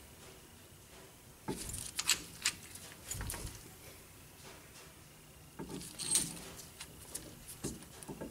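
Caliper windback tool being turned by hand to screw a rear brake caliper piston back into its bore: scattered metal clicks and scrapes in a few short clusters, with a dull knock about three seconds in.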